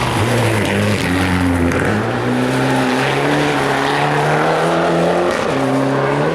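Rally car engine accelerating hard through the gears: the pitch climbs, drops back at each upshift and climbs again, about four times.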